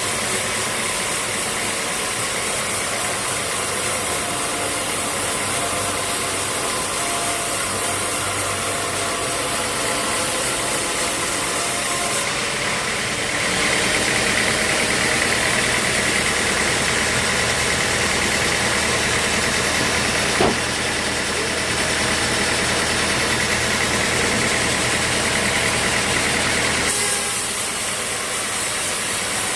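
Sawmill machinery running steadily. From about a third of the way in until near the end, the sound grows louder and brighter, as the saw blade cuts through a dry teak log. There is a single sharp knock partway through the cut.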